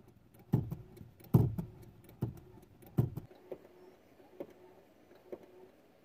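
Clutch pedal of a Mitsubishi Mirage pumped by hand four times, each stroke a dull knock a little under a second apart, then three fainter clicks. The clutch's slave cylinder has failed, so the clutch no longer engages.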